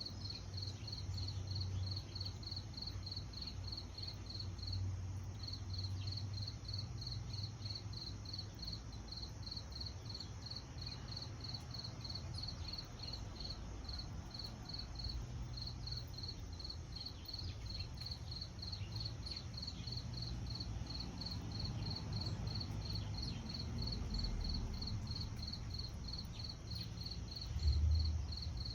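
A cricket chirping steadily in a high, even pulse, about three chirps a second, over a low outdoor rumble, with a brief low thump near the end.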